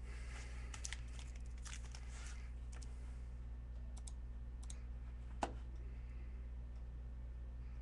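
Foil-wrapped trading-card packs handled by hand: scattered light crinkles and clicks over the first three seconds, and one sharp click about five and a half seconds in, over a steady low electrical hum.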